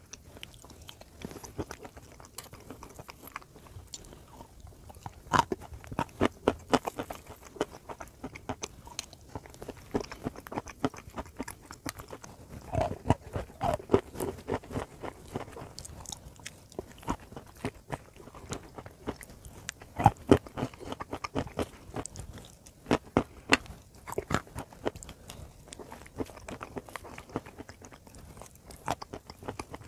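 A person chewing and crunching pieces of chalk mixed with clay paste, close to the microphone: crisp cracking bites that come in clusters, with quieter chewing between them.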